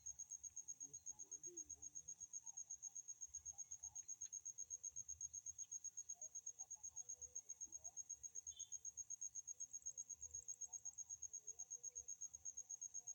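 A cricket calling steadily: a faint, high-pitched pulsing call of about eight pulses a second, unbroken throughout.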